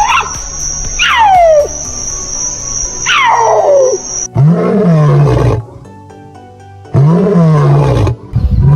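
A big cat calling: two high-pitched cries that fall steeply in pitch, over a steady high whine, then three deep, rasping roars about a second long each, the last two close together near the end.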